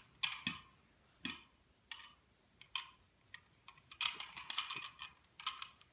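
Small plastic toy cars clicking and clacking together as they are handled: a scattered run of light clicks, with a quicker cluster about four seconds in.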